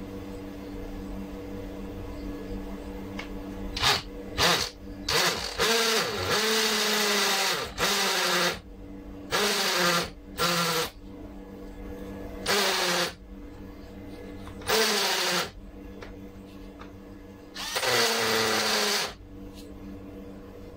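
Cordless drill boring into a concrete wall in about nine separate bursts, short ones at first and longer ones later, with the motor's pitch sagging during each burst.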